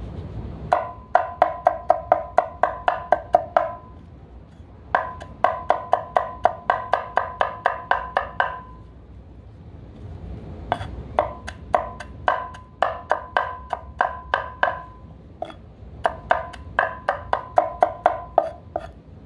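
Cleaver mincing ginger on a wooden cutting board: rapid knocks about five a second in four runs with short pauses between, each knock with a hollow wooden ring.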